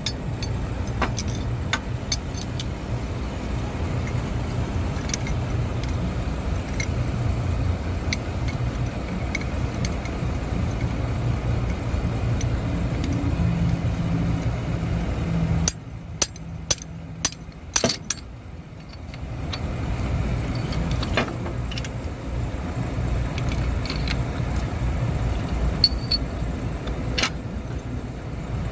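A steady low engine rumble in the background, with light metallic clinks of steel tools as an injector puller is fitted over a diesel injector. About halfway through, the rumble drops away for a few seconds while several sharper clicks sound.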